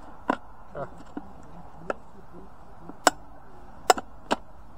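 Several sharp plastic clicks and knocks as a clear plastic rat bait station is handled and its lid and parts are fitted together. The loudest clicks come about three and four seconds in.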